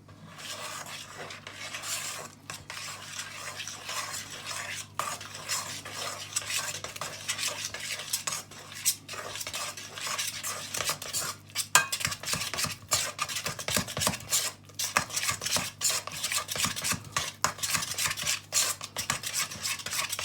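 A spoon stirring and scraping around a mixing bowl, with rapid clinks against its sides, working milk into flour and rubbed-in butter to bring soda bread dough together.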